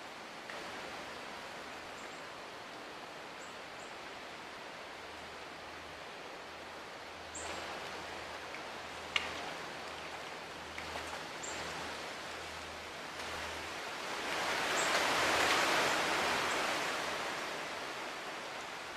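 Outdoor ambience: a steady hiss of wind and rustling vegetation, with a sharp click about halfway through and a louder swell of rustling near the end.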